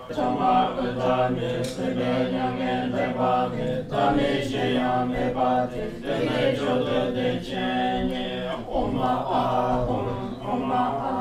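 Monks and nuns chanting Tibetan Buddhist liturgy together in low, steady voices, in long phrases with short pauses for breath.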